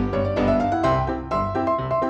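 Background music: a keyboard melody of quick successive notes over a bass line.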